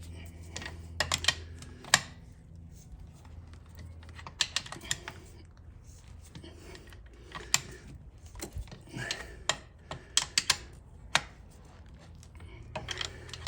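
Scattered sharp clicks and clinks of hand tools and engine parts being handled, often in quick clusters of two to four, over a steady low hum.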